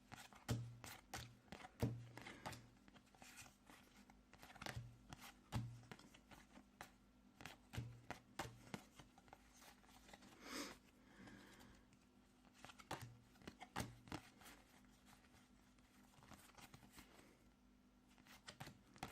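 Faint, irregular clicks and rustles of Pokemon trading cards being handled and flipped through one by one, over a low steady hum.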